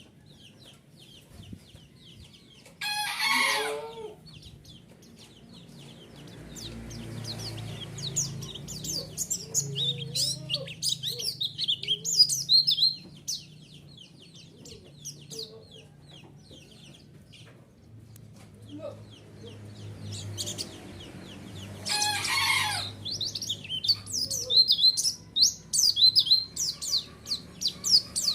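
White-eyes (pleci) singing: rapid, high, twittering chirps and trills in quick runs. Two louder calls that fall steeply in pitch break in, about 3 seconds in and again around 22 seconds.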